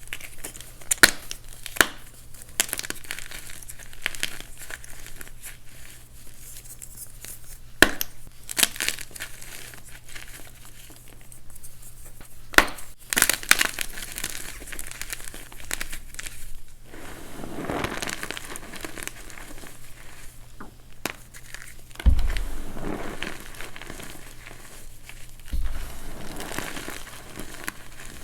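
Reformed blocks of dyed MagKing gym chalk being crushed by hand, crunching and crumbling with many sharp crackles and snaps. Near the end come two heavier thuds, about three seconds apart.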